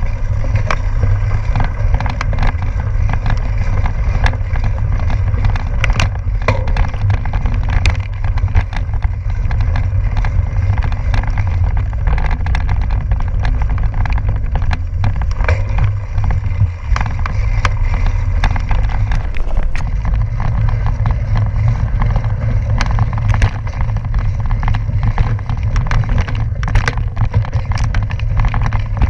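Gravel bike rolling over a rough dirt and stone trail: a steady low rumble with frequent sharp clicks and knocks from the tyres and bike jolting over loose rocks.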